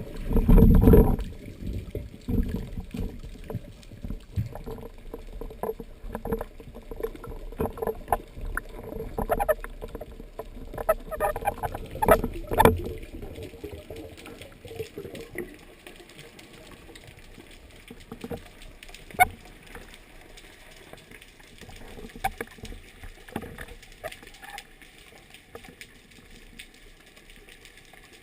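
Water moving and sloshing with many scattered clicks and knocks, as heard on a spearfishing dive. There is a loud low rush about a second in and a few sharp knocks around the middle, and it grows quieter in the second half.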